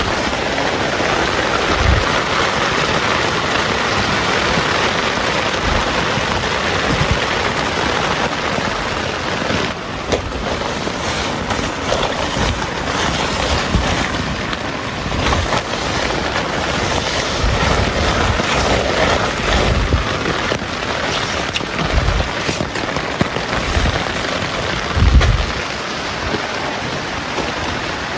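Heavy rain pouring steadily in a storm, a dense even hiss, with gusts of wind and a few low thumps on the microphone, the strongest about 25 seconds in.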